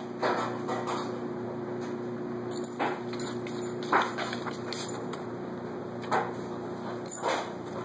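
Dog and kitten playing under a weight bench: a few short knocks and bumps, the loudest about four seconds in, over a steady hum.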